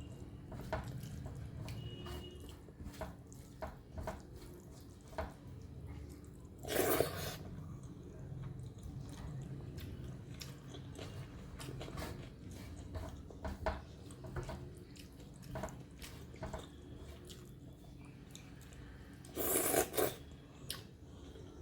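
Close-up chewing and wet mouth clicks of someone eating rice, dal and fried vegetables with the hand. Two louder noises of about a second each break in, about a third of the way in and near the end.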